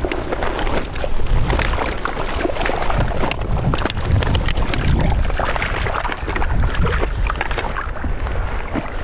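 Water splashing and sloshing as a keepnet full of fish is hauled up out of a pond and tipped to let the fish go, with a steady low rumble underneath.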